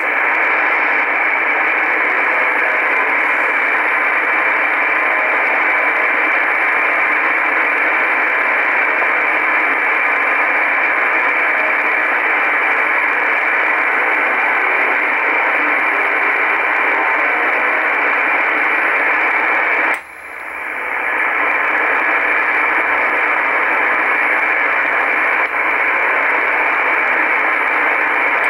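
Icom IC-R8500 shortwave receiver tuned to 4625 kHz upper sideband, giving a steady hiss of static with the Russian military 'Buzzer' station's buzzing tone faint, just barely above the noise floor. About two-thirds of the way through, the hiss drops out suddenly and swells back over about a second.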